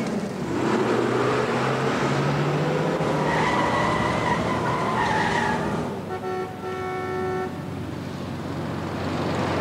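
Car driving off through city traffic, its engine rising in pitch as it pulls away, with a car horn sounding for about a second and a half past the midpoint.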